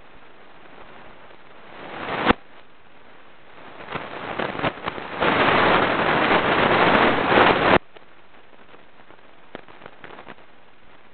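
Fingers rubbing and brushing against the camera's microphone: a rising rustle that ends in a sharp click about two seconds in, scattered crackles, then a loud, dense crackling rustle for about two and a half seconds that cuts off suddenly.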